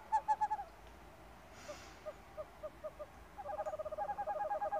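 A run of short, clear hooting notes, about four a second, fading out just after the start. A quieter run follows in the middle, then a faster, louder run begins about three and a half seconds in.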